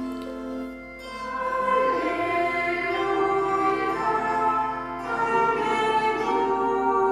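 Voices singing in unison over sustained instrumental chords, growing louder about a second in. This is the sung response that follows the Gospel reading at Mass.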